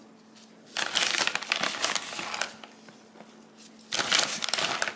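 A plastic bag of shredded cheese crinkling in two bursts, about a second in and again near the end, as cheese is shaken out of it onto a pizza.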